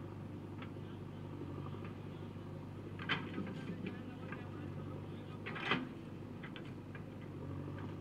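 JCB 3DX backhoe loader's diesel engine running steadily under working load, with two sharp clanks, one about three seconds in and one near six seconds, as the bucket swings over the tractor trolley and dumps its load of mud.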